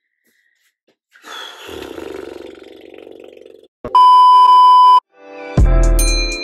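A low rough sound starting about a second in, then a click and a loud, steady, one-pitch test-tone beep of about a second, the tone of a TV 'no signal' screen. After a short gap, intro music begins with a deep bass hit and plucked notes.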